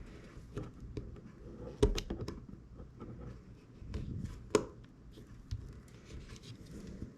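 Light clicks and taps of hands handling an iPhone 6s during reassembly, with two sharper knocks about two seconds and four and a half seconds in.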